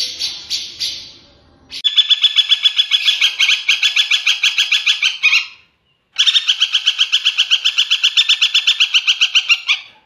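Common flameback woodpecker giving two long, rapid rattling trills of sharp, evenly repeated notes, about a dozen a second, each lasting over three seconds with a short pause between. Before the first trill, a different caged bird's repeated calls end abruptly about two seconds in.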